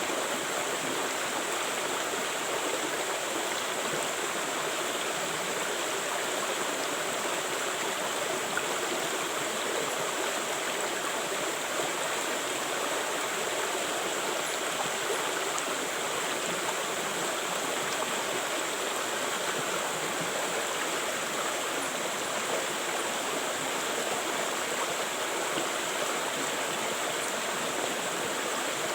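River water flowing steadily over rocks, a constant, even rushing and babbling with no breaks.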